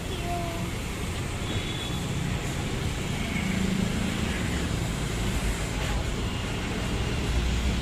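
Steady city street traffic noise: the low rumble of passing vehicles' engines and tyres, with a faint voice briefly at the start.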